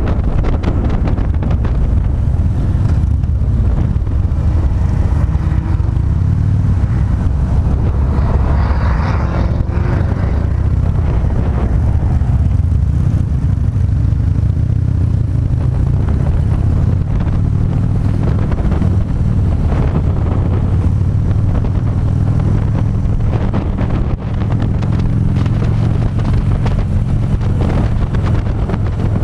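Harley-Davidson V-twin engine running steadily at road speed, heard from the rider's seat, with wind buffeting the microphone.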